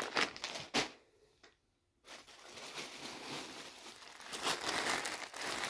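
Clear plastic bags crinkling and rustling as bagged clothing is handled; it stops for about a second, then a longer stretch of softer rustling follows.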